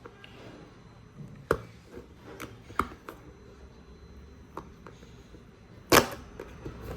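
Cardboard box and packaging being handled as the contents are worked out: scattered light clicks and knocks, with one louder knock about six seconds in.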